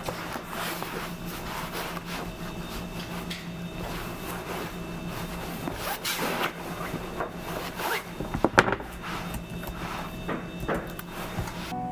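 Assorted rustling and clicking handling noises over a steady low hum, with a few sharper clicks about two-thirds of the way through.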